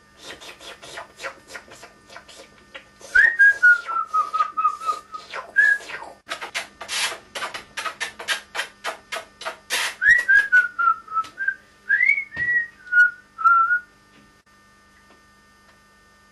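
A person whistling short phrases that step downward in pitch, over a fast run of sharp clicks at about four a second that thins out after about ten seconds.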